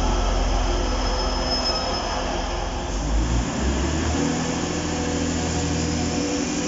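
British Rail Class 153 diesel railcar's underfloor engine rumbling as the unit pulls away from the platform. It cuts off abruptly about three seconds in to the steady, multi-toned hum of a Class 185 diesel multiple unit's engines running.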